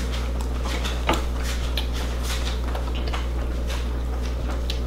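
Kids eating fast food at a table: scattered soft clicks and rustles of hands on fries and wrappers, and chewing, over a steady low hum of room noise.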